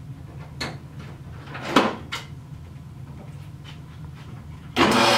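A few clunks and clicks as the Craftsman two-speed bandsaw is adjusted by hand. Near the end the bandsaw's motor switches on abruptly and runs steadily.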